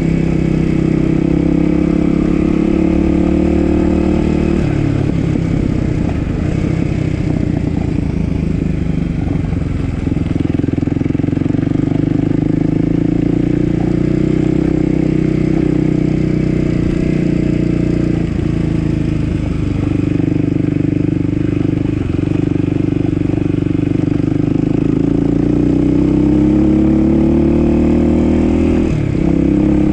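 Dirt bike engine running under way, its pitch rising and falling with the throttle, with several brief dips in revs along the way.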